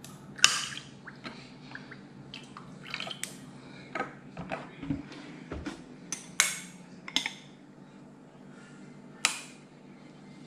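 Irregular sharp clinks and taps of a spoon against a drinking glass, about a dozen in all, the loudest about half a second in, with a couple of dull low bumps near the middle.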